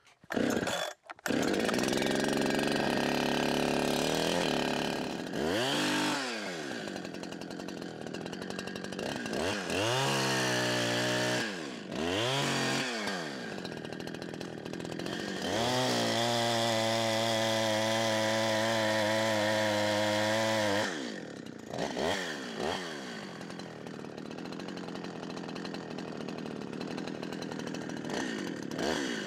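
Chainsaw engine running at high revs, cutting into a tulip poplar being felled. It starts about a second in, and the revs drop off and pick back up several times as the throttle is eased and squeezed.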